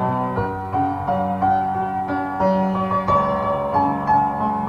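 Background piano music: a melody of separate notes moving over lower held notes.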